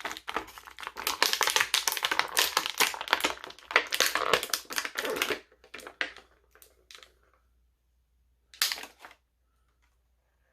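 Plastic and cardboard action-figure packaging being handled: a dense run of crinkles and clicks for about five seconds, then a few scattered clicks and one short burst of crackling near the end.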